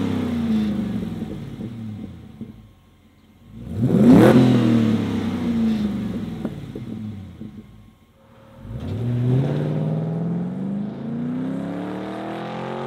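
Chevrolet C10's LS V8 running through Flowmaster Flow FX straight-through mufflers. The engine falls back from a rev at the start and is revved sharply again about four seconds in, then drops back. About nine seconds in the truck pulls away, and the exhaust note climbs steadily as it accelerates.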